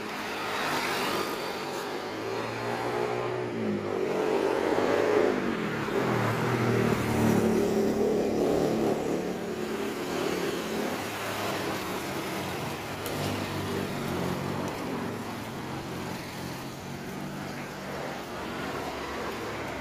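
Road traffic passing close by: car and motorbike engines, changing pitch as they go past, loudest about five to eight seconds in, then settling into a steadier traffic hum.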